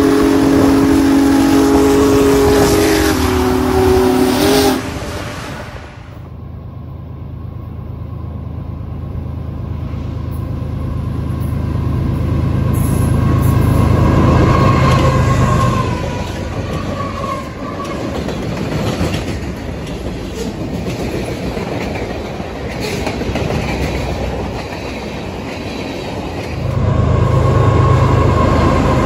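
Intro music ends with a cut about five seconds in. Union Pacific diesel freight locomotives then rumble across a railroad bridge, with the train horn sounding, and it grows louder as the train nears. Near the end, a second locomotive consist crossing a bridge comes in loud, with engine rumble and horn.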